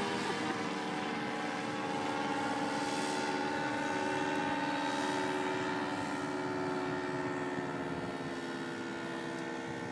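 Paramotor's engine and propeller running with a steady drone as it flies low overhead, getting a little quieter near the end.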